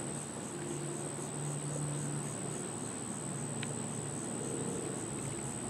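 Steady background drone: a low hum that wavers slightly in pitch, under a constant high-pitched whine and an even hiss, with a faint tick about three and a half seconds in.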